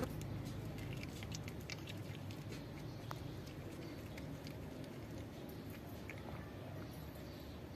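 A cat crunching dry kibble: a quick run of sharp crunches in the first couple of seconds, then scattered ones.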